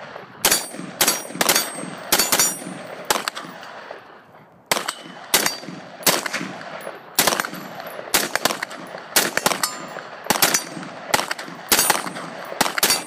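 AR-15 rifle firing 5.56 NATO rounds semi-automatically, about eighteen shots at a steady half-second to one-second pace with one short pause early on, each shot echoing. Steel targets ring faintly on hits.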